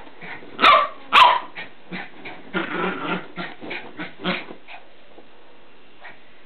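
Border terrier puppy play-barking in excitement: two loud, sharp barks about a second in, then a run of shorter, quieter barks and growls that stops near five seconds in.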